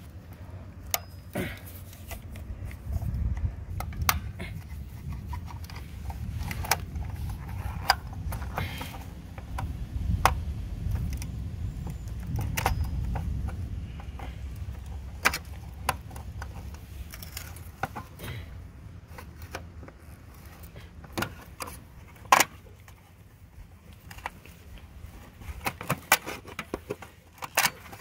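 Scattered small metallic clicks, clinks and scrapes of hand tools and wires as the power wires are unfastened from an air conditioner condensing unit's contactor, over a low rumble.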